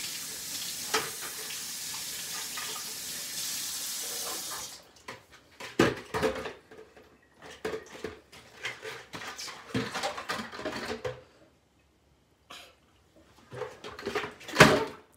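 Kitchen tap running steadily into a stainless steel sink, shut off suddenly about four and a half seconds in. Then scattered clinks and knocks of dishes being handled in the sink, with a louder knock near the end.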